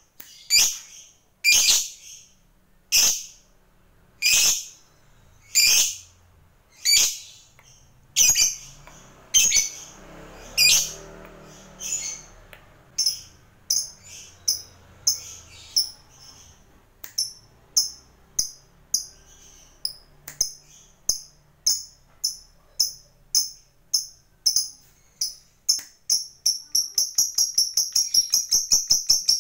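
Fischer's lovebird giving sharp, high-pitched chirps, at first about one every second and a half, then quickening until they run together into a rapid chatter near the end: the build-up into the long chattering 'ngekek' song that lovebird keepers prize.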